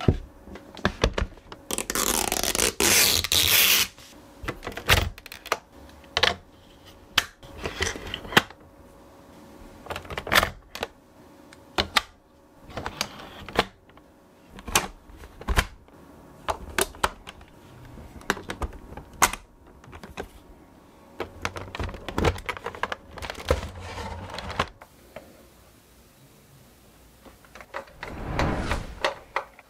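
Hands handling the pieces of a toy figure set: a run of irregular sharp clicks and knocks of hard parts. There is a longer rustling or scraping stretch about two seconds in and another near the end.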